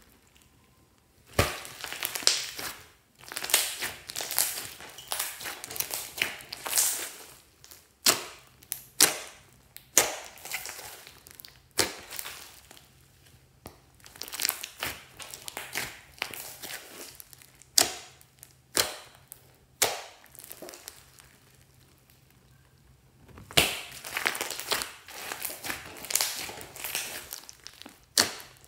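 Hands squeezing and pressing a large mass of glossy slime mixed with small foam beads: irregular squelches and sharp crackling pops come in bursts, with short pauses between squeezes.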